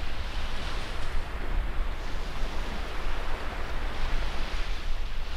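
Sea surf washing on a sandy beach, with wind rumbling on the microphone.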